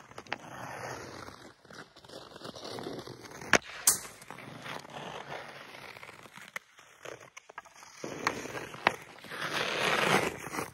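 Ice skate blades scraping and carving on rough outdoor ice while a skater stickhandles a puck. Sharp clacks of hockey stick and puck come now and then, two of the loudest a little after three and a half seconds in. The scraping is loudest near the end as the skater comes in close.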